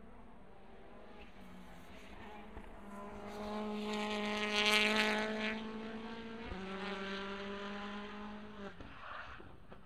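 Lada Vesta WTCC touring car's turbocharged engine at racing speed through an S-bend. It grows louder as the car passes, drops suddenly in pitch once past the middle, and then fades away.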